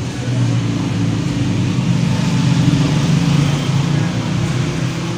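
Steady low engine hum, a little louder in the middle and easing off near the end.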